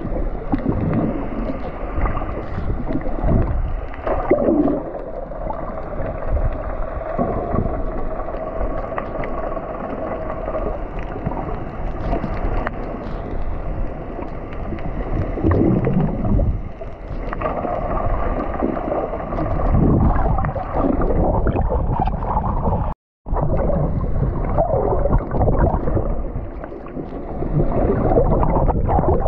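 Muffled underwater sound of moving water, with gurgles and a faint steady hum running beneath it. The sound cuts out for a moment about 23 seconds in.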